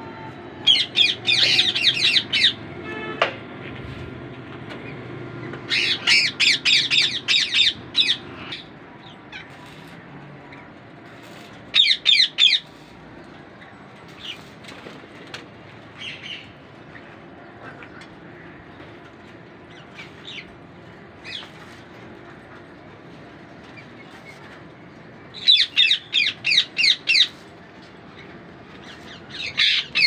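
Indian ringneck parakeets squawking: about five bouts of rapid, harsh repeated screeches, each lasting one to three seconds.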